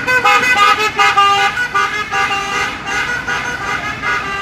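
A basuri-type 'telolet' musical air horn on a vehicle playing a quick melody, its notes stepping up and down several times a second with several tones sounding together.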